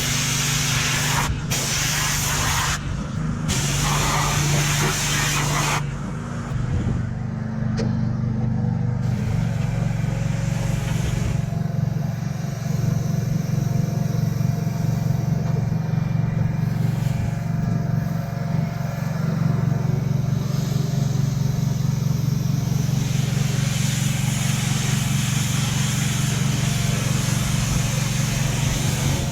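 Pressure washer running with a steady motor drone under the hiss of the water spray. The spray cuts out briefly twice in the first few seconds and is softer from about six seconds in.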